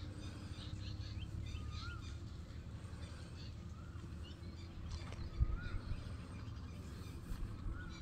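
Birds calling outdoors: one bird repeats a short up-and-down note every two to four seconds, with scattered higher chirps from others. A steady low rumble lies underneath.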